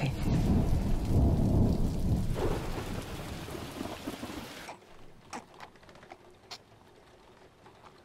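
A loud deep rumble with a rain-like hiss, dying away over about four seconds, then a few faint sharp ticks.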